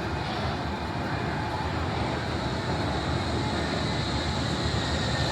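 Wuppertal suspension railway (Schwebebahn) car running: a steady low rumble with a faint high whine that glides in pitch near the end.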